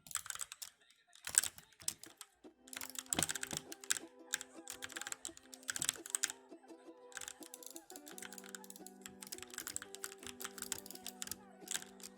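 Typing on an E-element Z88 75% mechanical keyboard: quick clusters of keystrokes with short pauses between them, and one louder keystroke a little over a second in. From about two seconds in, music with long held notes plays under the typing.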